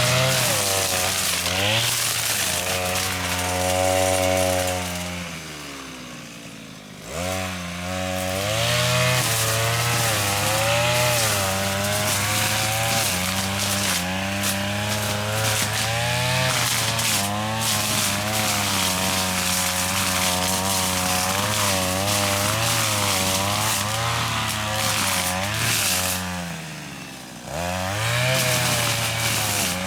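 Small engine of a grass-cutting mower running at high revs, its pitch wavering as it bites into thick grass. It slows down twice, about six seconds in and again near the end, then revs straight back up.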